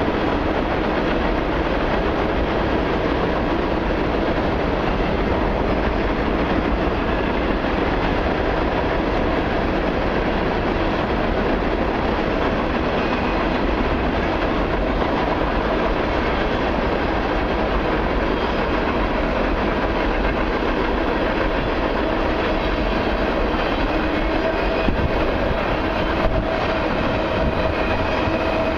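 Long freight train of autoracks and mixed cars rolling past, a steady rumble of steel wheels on the rails.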